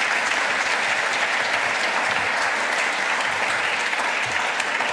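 A large auditorium audience applauding, a steady dense wash of clapping hands.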